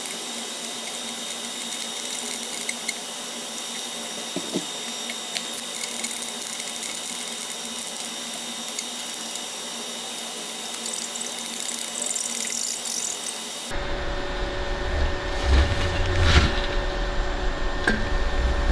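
TIG welding on thin-wall stainless steel pipe: a steady hiss with a faint electrical hum. About three-quarters of the way through it cuts off abruptly, and louder low rumbling and a few knocks follow.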